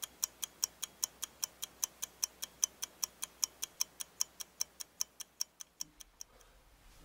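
Ticking clock, fast and even at about five ticks a second, growing fainter and stopping about six seconds in.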